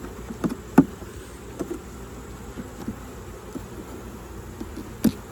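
Honeybees buzzing steadily around an open hive, with a few sharp clicks and knocks, the loudest about a second in and another near the end.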